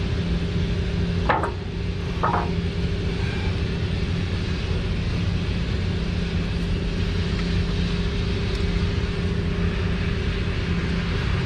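Two short clunks about a second apart, early on, as an ignition coil is worked into place on the engine, over a steady low machinery rumble with a faint hum.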